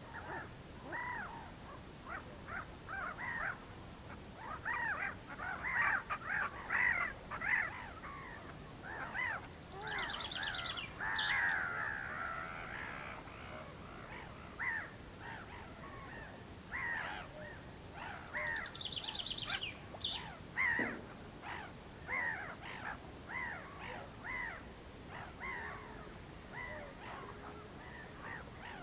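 Whooper swans calling over and over, short echoing honks coming thick and fast in overlapping bouts. Another bird adds a quick high trill twice.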